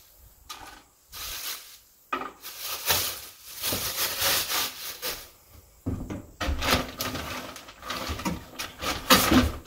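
Rustling and rubbing of packaging being handled, in irregular bursts, with a louder scrape near the end.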